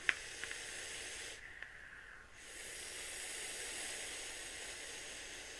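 A click, then the steady hiss of a long draw on a vape with a cotton-wicked rebuildable coil, air rushing through the atomizer as the coil fires, with a short break in the hiss about a second and a half in.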